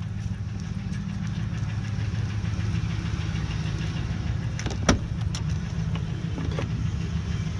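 Pickup truck engine idling steadily, a low even hum, with a single sharp click about five seconds in.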